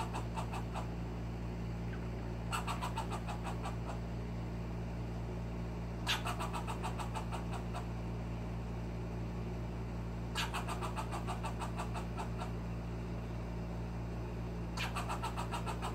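Young fox squirrel giving its alarm call at a cat: bouts of rapid clicking barks about every four seconds, each a quick run of notes that starts sharp and fades, over a steady low hum.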